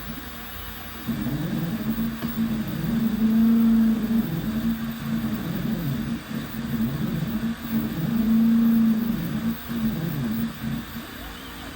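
Stepper motors of an OpenBuilds Ox CNC machine moving the axes through a job: a whining hum that holds steady for stretches and glides up and down in pitch as the moves speed up and slow down, starting about a second in.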